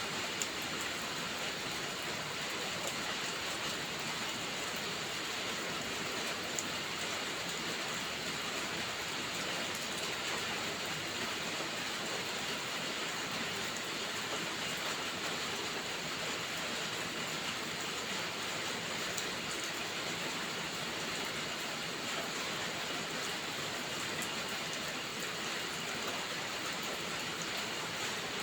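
Steady rain: a dense, even hiss with a few faint ticks scattered through it.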